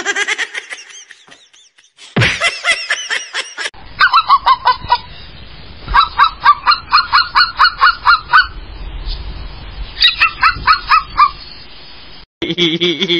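An animal's short calls repeated quickly, about six a second, in three runs, after a few brief cries near the start.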